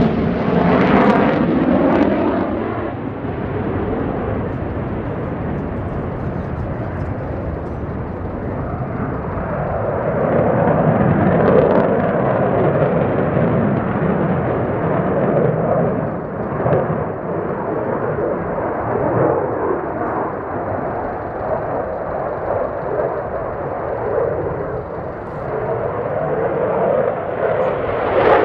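Twin AL-31FP afterburning turbofans of a Sukhoi Su-30MKI fighter, a continuous jet roar that swells and fades as the aircraft manoeuvres. A sweeping whoosh falls in pitch at the start, and another rises near the end as the jet passes.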